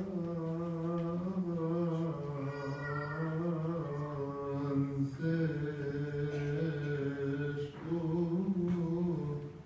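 A single male voice chanting Coptic Orthodox liturgical chant into a microphone, holding long drawn-out notes that slide slowly up and down in pitch, with a short breath about five seconds in.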